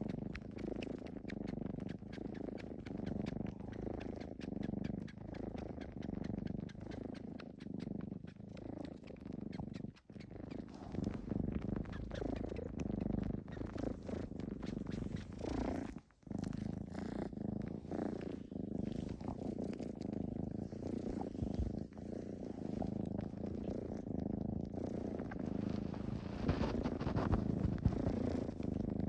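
A pet cat purring loudly while suckling, with many quick sucking clicks over a continuous purr. This is a cat's nursing-style sucking on cloth (jjupjjup), a comfort behaviour. The purr breaks off briefly twice, about ten and sixteen seconds in.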